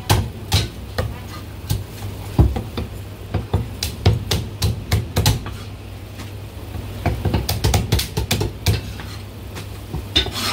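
Chinese cleaver chopping a cooked chicken on a thick wooden chopping block: sharp, irregular chops, coming in quick runs about two-thirds of the way through, over a steady low hum.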